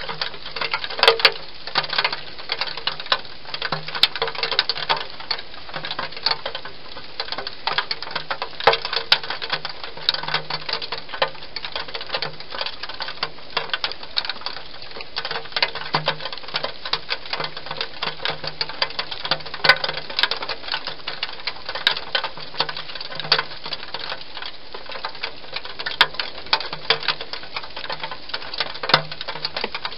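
Hedgehog eating inside a plastic feeding box: a dense, irregular run of small crunching clicks from its chewing.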